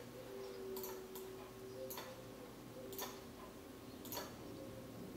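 Faint sharp clicks, roughly one a second, over a low steady hum.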